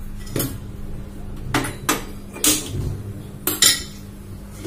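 About six sharp clicks and clinks, two of them in quick pairs, as a burner on a glass-top gas stove is lit.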